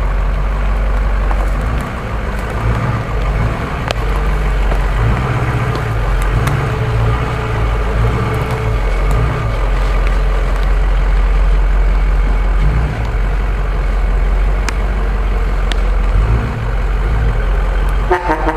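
Ford F-250 Super Duty pickup's engine running at low revs under light load as the truck crawls over rough ground, its level rising and falling slightly, with a few short sharp cracks along the way.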